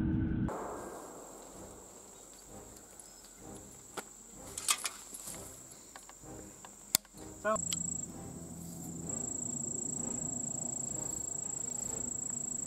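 Steady high-pitched insect drone, growing louder about nine seconds in. A few sharp clicks and knocks near the middle come from handling the replica 1853 Enfield rifle's percussion lock and reloading gear.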